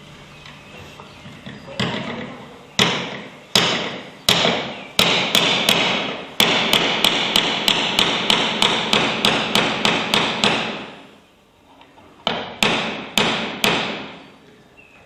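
Hammer blows ringing in a reverberant hall: a few spaced strikes, then a fast, steady run of about three a second, a short pause, and four more strikes near the end.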